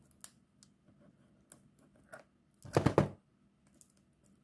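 Scissors snipping at the edge of a cardboard box: faint scattered clicks, then a louder quick run of several snips about three seconds in.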